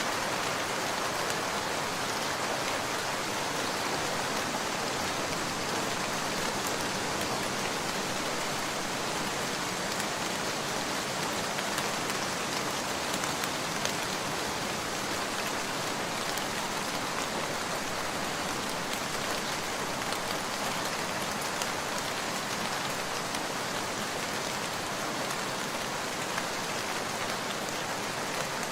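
Steady rain: an even hiss of rainfall with scattered faint ticks of single drops.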